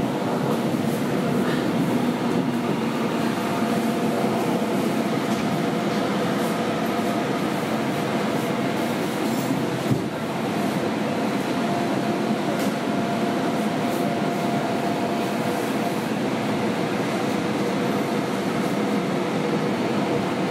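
Steady running noise inside a Korail electric commuter train on the Gyeonggang Line, a rumble and hiss with a faint steady hum through it. A single knock about ten seconds in.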